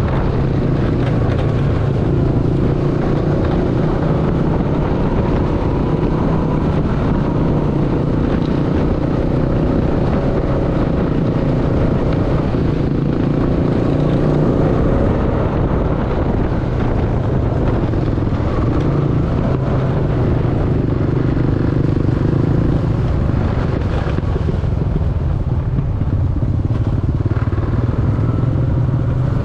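Honda Foreman 520 ATV's single-cylinder engine running steadily as the quad rides along a dirt trail. The engine note shifts slightly about three-quarters of the way through.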